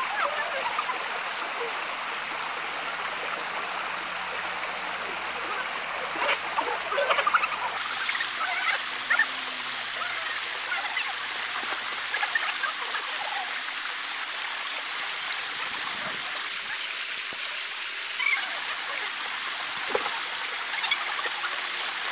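Shallow river water running steadily over rocks, with a few brief small splashes.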